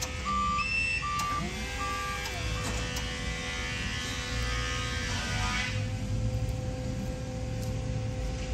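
Forklift working at a truck's loading door, its reversing alarm beeping at an even pace for about the first two seconds. Over a steady engine hum, a short whine rises and falls about a second in.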